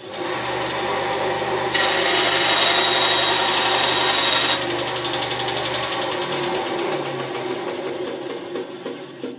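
Benchtop wood band saw starting and running, with a louder hiss for about three seconds from about two seconds in as the blade cuts through a small piece of wood. Then it runs on without load and winds down as its low hum stops about six seconds in.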